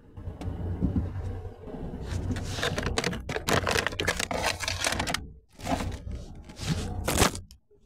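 Close, irregular rustling, scraping and knocking handling noise right at the microphone over a steady low hum.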